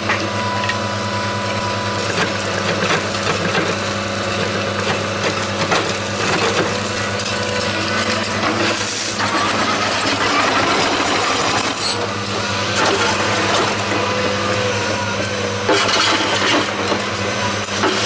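Cat tracked hydraulic excavator's diesel engine running steadily under load, with clattering and scraping of gravel and stones as the bucket digs and dumps.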